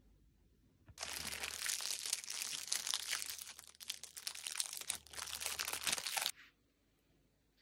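Packaging being crinkled and handled, a dense crackle that starts suddenly about a second in and cuts off about five seconds later.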